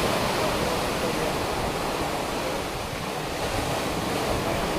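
Steady rush of ocean waves and wind, with a fluctuating low rumble of wind on the microphone.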